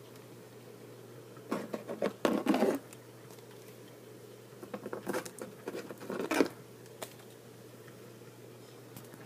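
Small plastic Littlest Pet Shop figures tapping and clattering against a plastic bin lid as they are hopped across it, in two quick flurries of clicks and then one last tap.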